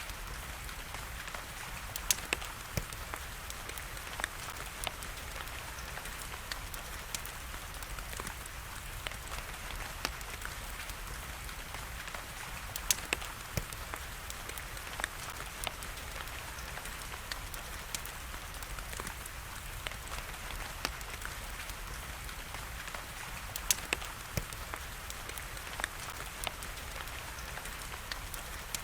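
Steady hiss of rain with a wood fire crackling over it, sharp pops scattered irregularly, the loudest about two seconds in, near the middle and near the end.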